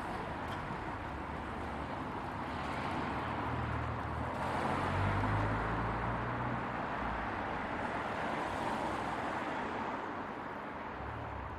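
Road traffic along a city street: a steady wash of passing cars, swelling to its loudest about five seconds in and easing off toward the end.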